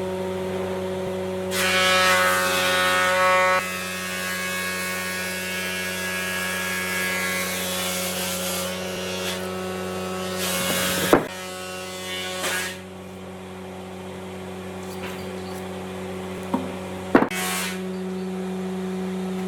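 Electric power tool motor running steadily, with louder stretches about two seconds in and again near the middle, and a few sharp knocks.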